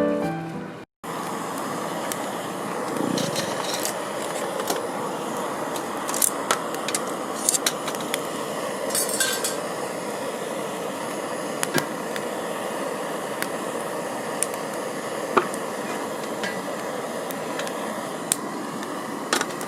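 Background music ends about a second in. Then scattered light clinks and clicks of cooking utensils and dishes over a steady rushing background.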